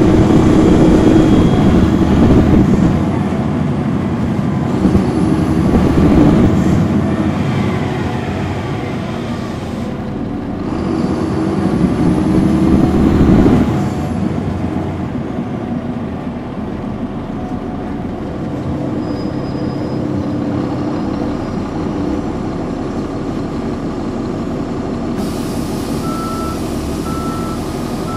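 2009 NABI 416.15 transit bus with a Caterpillar C13 ACERT diesel and ZF Ecomat 6-speed automatic pulling away. The engine note swells and eases three times in the first half as it works up through the gears, then runs more steadily and a little quieter. Near the end a steady hiss starts and a beep repeats about once a second.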